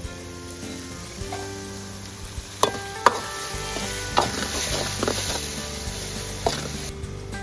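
Chopped tomatoes and onions sizzling in oil in an aluminium kadai while a steel ladle stirs them, with several sharp clanks of the ladle against the pan from about the middle on.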